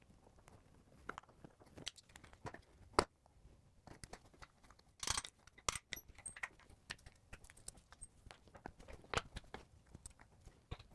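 Scattered light clicks and knocks of hand tools and small hardware being handled during reassembly of a Pelican 1615 case's wheel housing, with one sharper knock about three seconds in and a short rattle about five seconds in.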